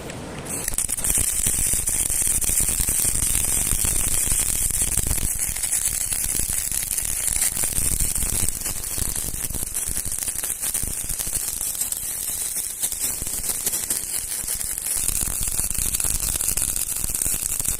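CO2-shielded MIG welding arc running continuously with a dense crackling hiss. It starts about half a second in and cuts off near the end.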